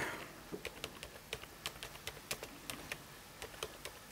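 Typing on a computer keyboard: quiet, single keystrokes at an uneven pace, about four a second.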